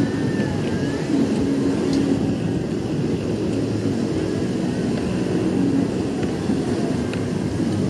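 Steady outdoor ambience of passing vehicle traffic with people's voices mixed in.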